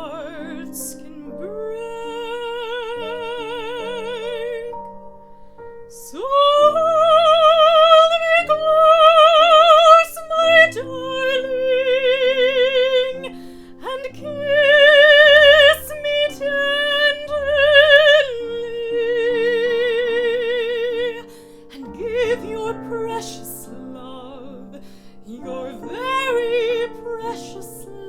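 A woman singing a series of long held notes with a wide, even vibrato over piano accompaniment, the loudest notes about a third of the way in. It quietens near the end before one last rising note.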